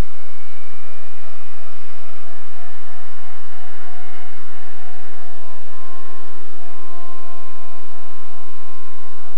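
Blade 130X micro RC helicopter's electric motors and rotor blades whining, the pitch climbing early on and then holding steady, with a shift in pitch about halfway through as the throttle changes around lift-off.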